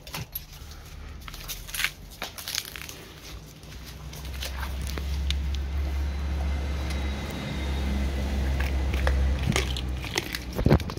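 A dog chewing a raw mackerel head, with irregular wet bites and bone crunches and a sharper crunch near the end. A steady low rumble runs underneath from about four seconds in until near the end.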